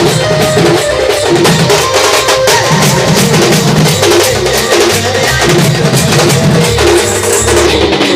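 Sambalpuri band music: a loud passage with drums and percussion keeping a steady beat over bass and a melody line.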